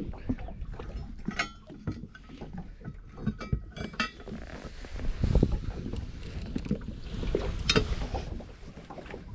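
Anchor chain and a folding grapnel anchor clinking and rattling as they are hauled aboard and piled into the bow's anchor well, with dull knocks against the boat and a sharp metallic clink near the end.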